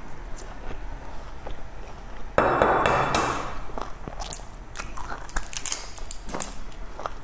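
Close-up eating sounds: chewing with many small wet mouth clicks. About two and a half seconds in, a sudden louder noise of about a second cuts in and then fades.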